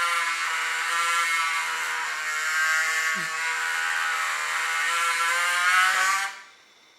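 Feiyu FY-G4S handheld gimbal's motors giving a loud, steady buzz as the gimbal is held at an angle, cutting off suddenly about six seconds in. The buzz comes with strong vibration, a fault the owner says is not how it should be.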